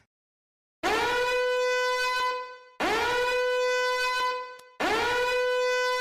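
Three identical blasts of a horn-like wind instrument, each scooping up in pitch into a held, brassy note and then fading, repeated at even intervals about two seconds apart.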